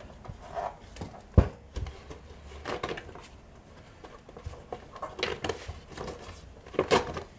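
Workshop handling noise: a sharp knock about a second and a half in, then scattered clatter and light rattling in a few short clusters.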